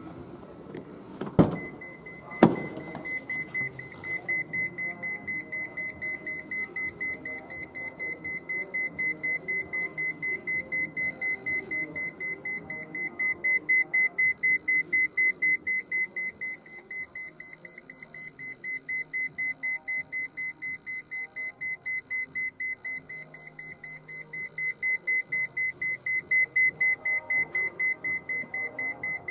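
Two clunks as a Nissan Skyline GT-R R33's door is unlatched and opened, then the car's key-in-ignition warning chime beeping rapidly and evenly with the door open and the key left in the ignition.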